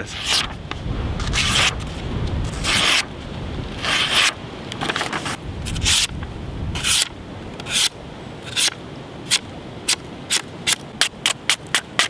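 Razor-sharp factory edge of a Buck 110 folding knife slicing through a sheet of paper in a series of strokes, slower and longer at first, then shorter and quicker near the end.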